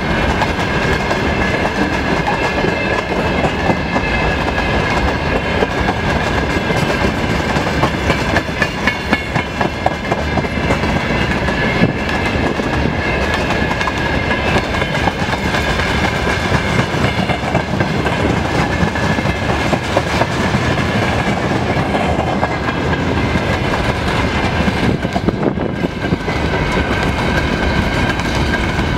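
A freight train's wagons, mostly open gondola cars, rolling steadily past, their wheels knocking rhythmically over the rail joints. A steady high-pitched whine rides over the rumble.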